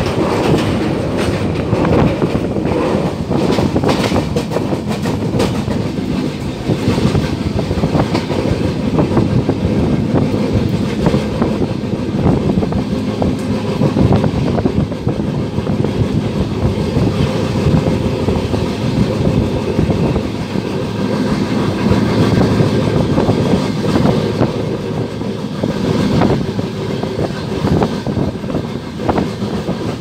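Passenger train running at speed, heard loud from an open coach doorway: a steady rumble of wheels on the rails with frequent sharp clacks over the joints.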